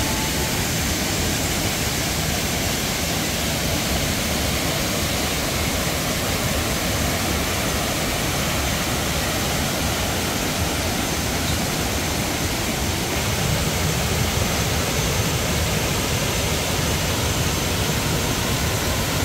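Small waterfall cascading over stepped rock ledges into a pool, a steady rushing of water.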